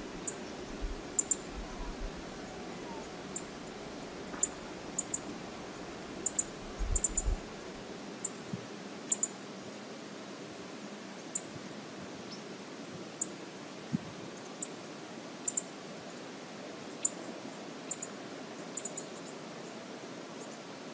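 Steady rushing of river water, with many short, sharp clicks scattered irregularly over it.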